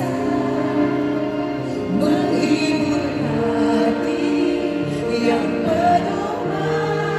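Slow pop ballad performed live: a woman singing over band accompaniment of sustained chords.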